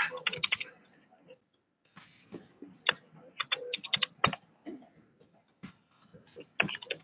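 Scattered clicks and taps, like keyboard and mouse clicks, with brief bits of quiet murmured talk.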